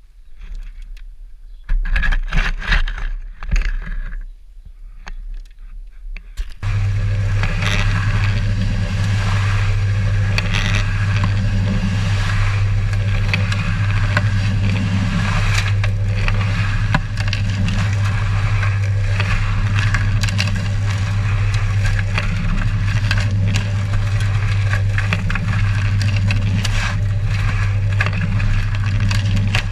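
A spade scraping and cutting into soil in short bursts, then from about seven seconds in a cement mixer runs with a loud, steady hum while sand is shovelled into it, with scattered scrapes of the shovel.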